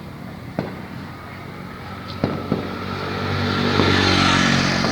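Firework bangs: three sharp single pops in the first two and a half seconds. Then an engine passes close by, building to its loudest about four seconds in and easing off near the end.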